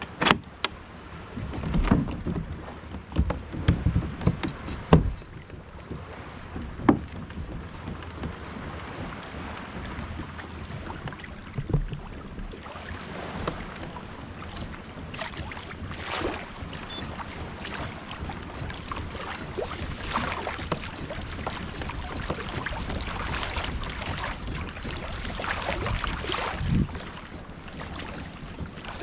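Water sloshing and swishing around a pedal kayak moving on the sea. There are several sharp knocks against the hull in the first few seconds.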